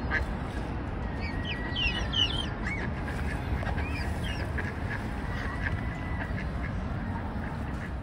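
Waterfowl calling in short, high chirping calls, thickest about two seconds in, over a steady low rumble of wind.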